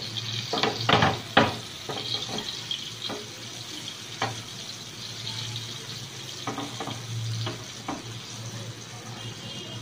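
Marinated sardines frying in shallow oil on a hot nonstick tawa: a steady sizzle, with several sharp crackles and clicks, the loudest in the first second and a half.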